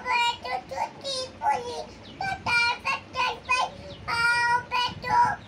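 A toddler singing a Hindi nursery rhyme in a high-pitched voice, in short phrases with brief breaks between them.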